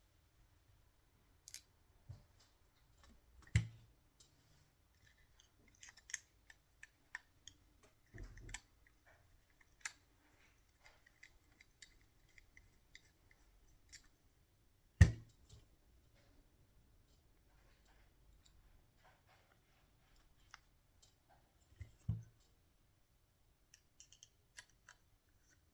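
Scattered light clicks and taps of small parts and hand tools being handled during model helicopter assembly, with a few sharper knocks, the loudest about fifteen seconds in.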